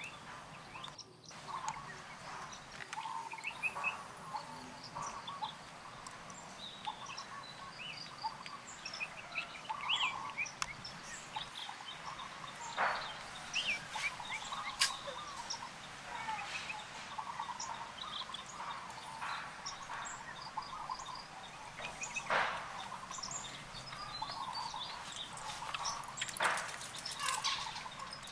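Many short, high chirps and twitters of small animals, dense and continuous, with a few sharp clicks scattered through.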